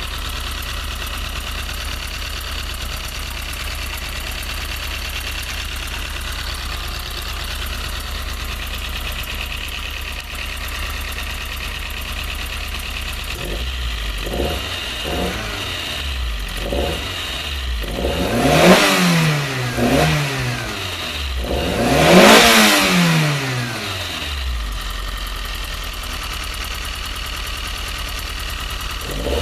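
Cold Toyota 4A-GE 20-valve Blacktop four-cylinder idling with a ticking that the owner traces to the exhaust header. About halfway in, a few short throttle blips, then three higher revs, the biggest near the end, before it drops back to a steady idle; the ticking goes away at high revs.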